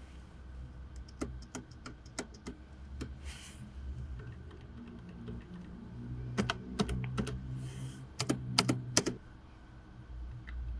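Space bar of slim wireless keyboards pressed again and again, one key at a time: the rubber-dome membrane Wireless Desktop 900 and the scissor-switch Keychron B1 Pro. A string of separate clacks, sparse at first, with a louder, quicker run of presses from about six to nine seconds in.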